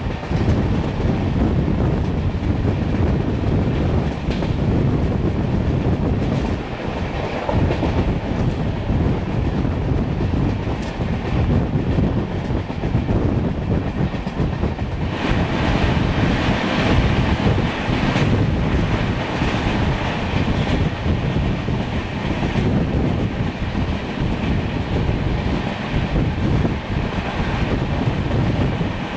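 Running noise of an LHB passenger coach at speed, heard from the coach itself: a steady rumble of wheels on rail with a few sharp clicks from rail joints. The noise grows brighter and hissier for a few seconds about halfway through.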